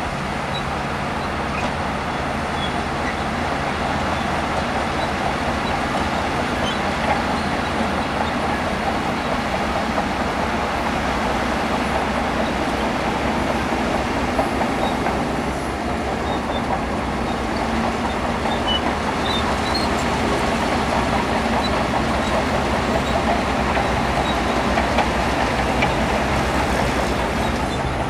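Shantui DH17C2 crawler bulldozer at work: its diesel engine runs steadily with the rattling and grinding of its steel tracks, and small clanks throughout.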